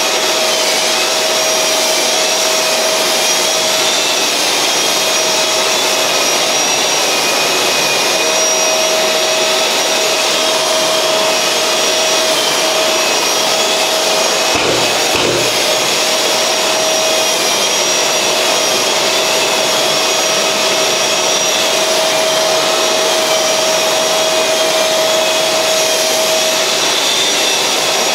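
Flex Giraffe long-reach drywall sander running steadily against a filled plasterboard wall, with the dust extractor sucking the dust away through its hose. The motor sound is steady and loud, with a brief change about halfway through.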